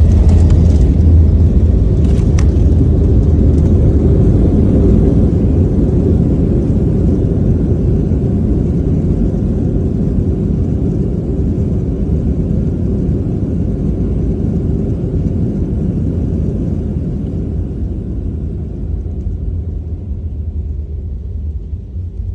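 Loud, steady low roar of jet airliner cabin noise, engines and airflow, on a Boeing 737-800; it slowly eases off over the last third.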